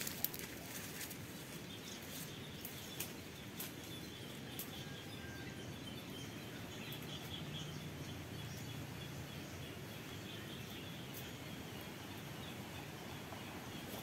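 Quiet forest ambience with faint, high bird chirping and a few sharp clicks in the first few seconds.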